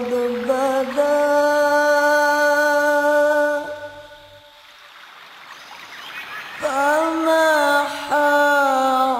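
Music with a voice singing long held notes, wavering slightly in pitch. The singing fades out for about three seconds in the middle, leaving only a faint hiss, then comes back.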